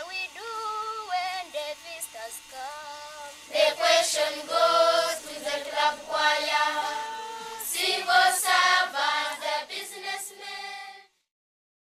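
Choir of Ugandan primary-school children singing a song together, many voices at once; the singing stops abruptly near the end.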